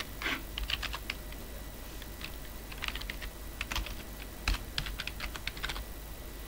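Typing on a computer keyboard: several short bursts of quick keystroke clicks, with one louder keystroke about four and a half seconds in.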